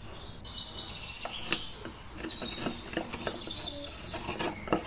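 Wooden pestle pounding lumps of black rock salt in a wooden mortar: several dull knocks, the sharpest about a second and a half in. Birds chirp in the background.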